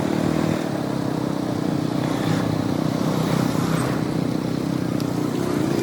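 KTM 200 Duke's single-cylinder engine running steadily at an even pitch, over a constant rush of wind and road noise.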